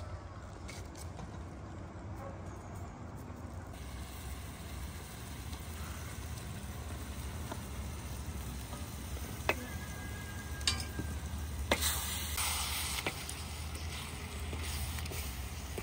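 Food sizzling as it fries in a pan, a steady hiss broken by a few sharp clicks about two-thirds of the way through.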